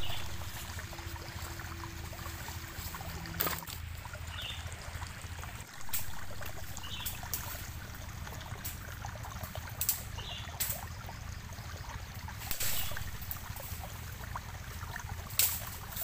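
Wood being handled on a forest floor: about half a dozen sharp knocks and cracks of sticks and logs, spread through, over a steady hiss. A few faint short chirps sound in between.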